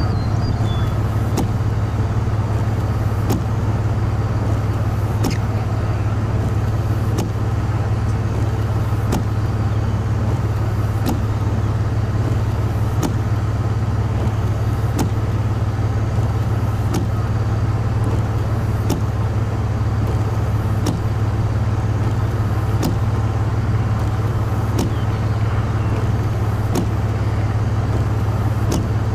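Steady low rumble of a car's road and engine noise heard from inside while driving, with a short click about every two seconds.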